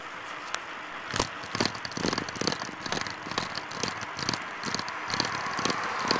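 Bicycle rattling as it is ridden along a road, irregular clicks and knocks coming from about a second in over a steady rush of wind and tyre noise.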